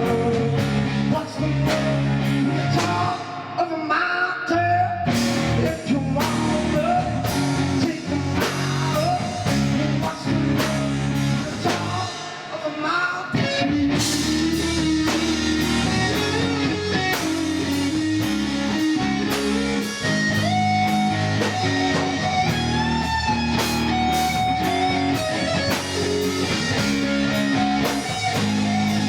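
Blues-rock music with no vocals: guitar playing over a steady drum kit beat.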